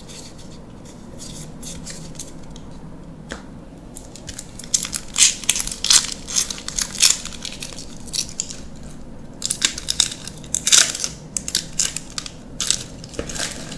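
Magic: The Gathering draft booster pack wrapper crinkling and tearing as it is pulled open by hand, in two spells of crackling, about five and about ten seconds in.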